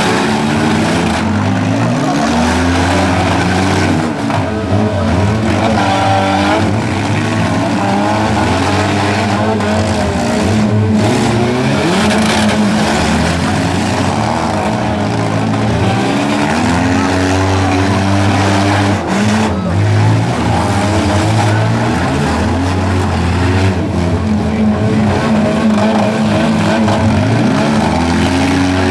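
Several four-cylinder compact cars revving hard in a demolition derby, their engine notes rising and falling over one another, with tyres squealing and the occasional crash of cars hitting.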